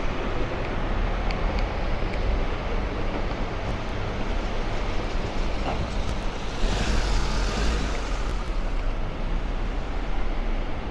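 Street traffic noise with a steady low rumble, and a vehicle passing with a rise and fall of tyre hiss about seven seconds in.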